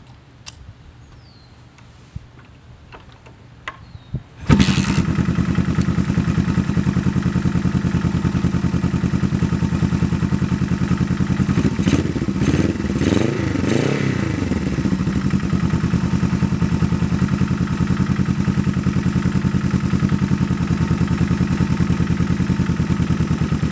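A few light clicks, then a Honda CB350 parallel-twin motorcycle engine fires on the kick start about four seconds in and settles into a steady idle through a Supertrapp exhaust. It is blipped up and down a few times around the middle.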